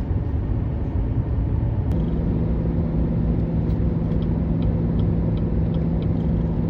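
Chevy 3500 dually pickup's engine and road rumble heard from inside the cab while towing a heavy trailer uphill; about two seconds in, a steady engine drone sets in and holds.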